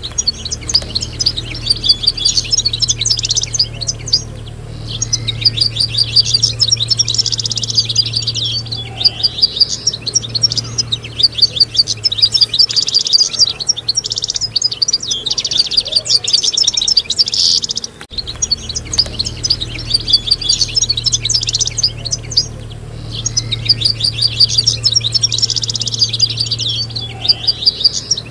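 Several European goldfinches singing together: fast, jingling twitters and trills in overlapping phrases, with brief pauses between bursts, over a low steady hum.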